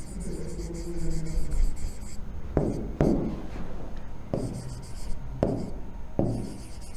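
Pen writing on an interactive touchscreen board, with about five sharp taps of the pen on the screen in the second half.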